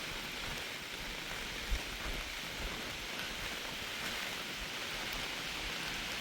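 Steady hiss of falling rain, with a few low wind thumps on the microphone and one short louder bump near the start.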